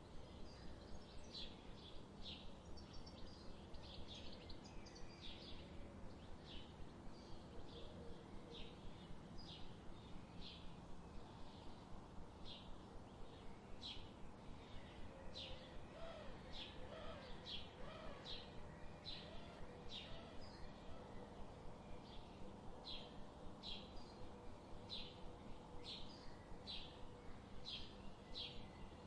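A bird chirping over and over, short high chirps about once or twice a second, over a faint low background hum.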